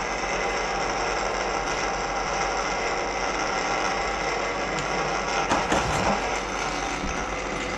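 Electric drain-cleaning machine running steadily, its motor spinning the cable down a kitchen drain line clogged with grease, with a few knocks about five and a half to six seconds in.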